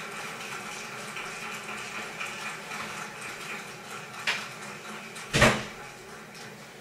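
Steady background noise of the show ring, with a sharp knock about five and a half seconds in and a fainter click just after four seconds.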